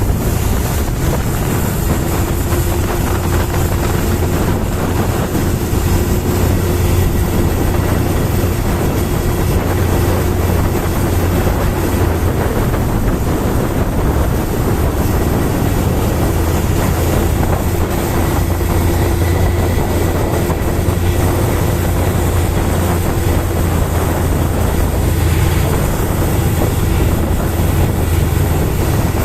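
Steady low drone of a motor ship's engine heard on board, with a constant rushing noise over it.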